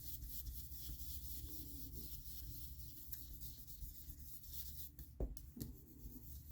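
Faint scratchy rubbing of an ink applicator on cardstock as ink is blended on for a background colour, with two soft taps about five seconds in.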